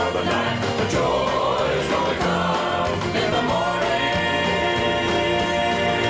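Country gospel song with choir-style voices playing; from about three and a half seconds in, voices and instruments hold long notes.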